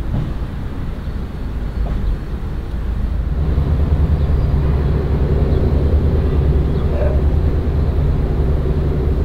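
Steady low engine rumble over outdoor background noise, growing louder and fuller about three seconds in.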